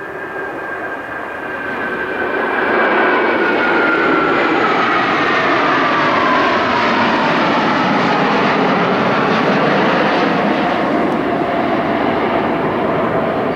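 A formation of eight F-15J Eagle fighters passing overhead, their twin turbofan engines making a loud rushing jet noise. The noise builds over the first few seconds, holds, and starts to fade near the end. An engine whine across it falls steadily in pitch as the jets go by.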